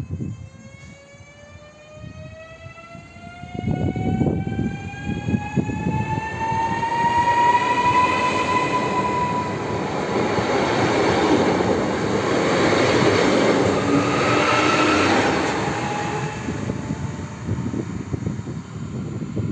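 Koleje Dolnośląskie 36WEh electric multiple unit pulling out of the station: its traction drive whines, rising steadily in pitch as it accelerates. The whine gives way to the loud rumble of the train passing close by, which eases off near the end as it moves away.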